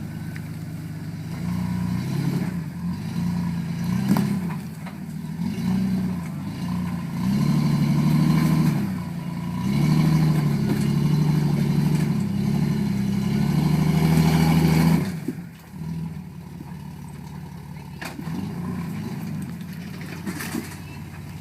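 Off-road vehicle's engine revving in repeated surges as it climbs an obstacle, then dropping back to a low, quieter run about 15 seconds in. A few short knocks are heard.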